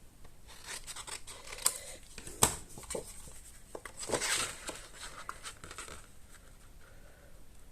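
Paper crafting at a table: card stock being handled and rustled, with several sharp clicks and taps, the loudest two about a second apart early on.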